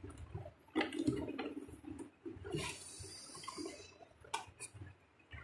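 Plastic RO purifier tubing and filter housings being handled: scattered faint clicks and knocks, with a longer rustling scrape about two and a half seconds in.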